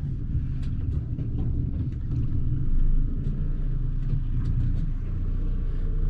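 Fishing boat's engine running with a steady low hum and rumble.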